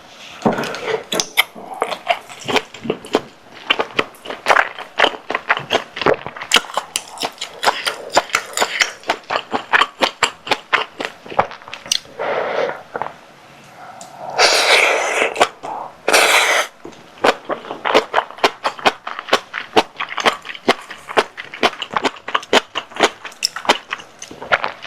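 Close-miked eating sounds: wet chewing and lip-smacking clicks, many per second, from a mouthful of spicy tteokbokki with sausage and cabbage. Two longer airy sounds come about 14 and 16 seconds in.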